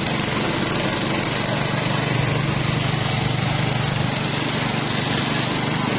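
Sugarcane juice crusher running with a steady low mechanical hum while a cane stalk is fed through its rollers and crushed.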